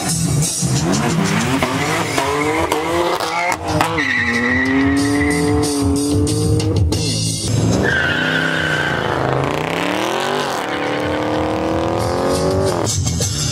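Performance car engines revving, rising and falling in pitch through several sweeps, with tire squeal, over background music with a steady bass.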